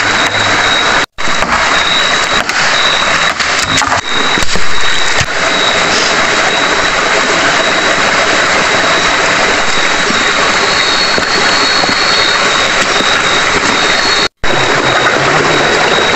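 Steady rushing of a river over rocks, with a steady high-pitched tone above it. A few sharp knocks in the first five seconds as a machete chops green bamboo.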